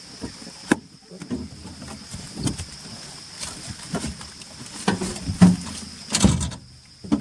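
A car jolting slowly downhill on a rough forest dirt track, with irregular knocks and thumps from the body and suspension, the heaviest about five and a half and six seconds in. A steady high drone of insects runs underneath.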